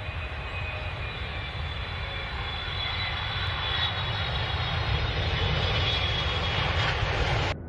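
Jet airliner in flight: a steady rushing engine drone with a faint high whine, growing slowly louder and cutting off abruptly near the end.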